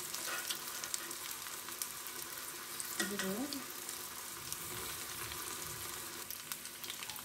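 Bread-crumb-coated paneer cheese balls deep-frying in oil in a kadai: a steady sizzle with many small crackling pops.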